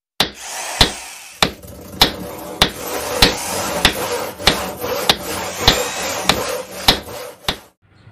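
Hammer blows in a steady beat, about one every 0.6 seconds, thirteen in all, over a running workshop-tool background: a tool-themed intro sound effect. The sound stops shortly before the end.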